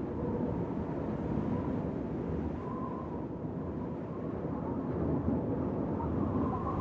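Wind blowing steadily in a low, rushing rumble, with a faint wavering whistle rising and falling now and then.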